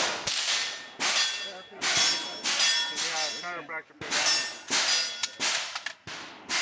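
A string of gunshots, roughly one or two a second, each followed by a short metallic ring from the steel plate targets being hit.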